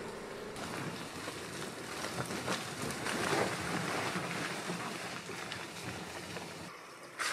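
Land Rover Defender 90 driving slowly off-road, its engine running low under a steady rush of tyre and ground noise, with scattered sharp crackles from the tyres working over the dirt trail.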